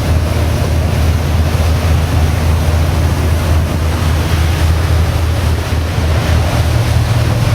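A boat's engine running with a steady low hum, under the rush of wind on the microphone and water.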